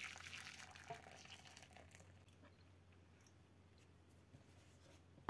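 Faint pouring of a thickened milk-and-cornstarch mixture from a steel saucepan into a glass dish. It trails off within the first two seconds, with a light tap about a second in, and is followed by near silence.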